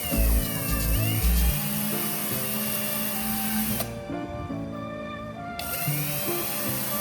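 An electric drill running over background music, its whine falling and rising in pitch as it slows and speeds up. The drill stops about four seconds in and starts again a second and a half later.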